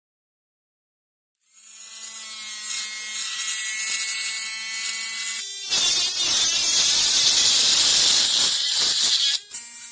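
Drill Master rotary tool with a cutoff wheel starting up and running free with a steady whine about a second and a half in. From about the middle it turns into a louder grinding as the wheel is pressed against a screw to cut its head off. Near the end it goes back to the free-running whine. The collet holding the wheel has not been fully tightened.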